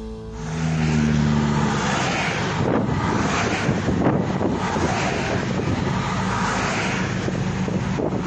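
Pickup trucks driving past at highway speed: steady tyre and engine noise, with a low engine hum about a second in and several swells as vehicles go by.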